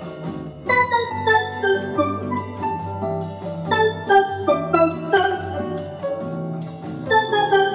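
Roland Aerophone AE-10G digital wind instrument playing a melody with a steel drum–like patch, built from three synth basses in different octaves plus lead guitar with chorus, reverb and slight delay. Each note starts sharply and dies away, in a quick run over low held bass notes.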